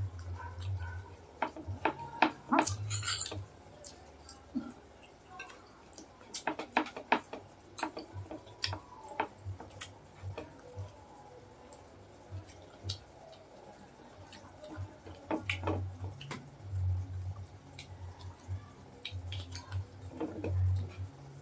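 Close-up eating sounds of pork hock and bone marrow eaten by hand: irregular wet lip smacks, chewing and sucking clicks, with a low hum that comes and goes.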